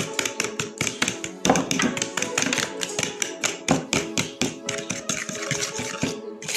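A metal fork clicks rapidly and evenly against the side of a bowl as it beats eggs, sugar and margarine into a batter. Background music plays under it.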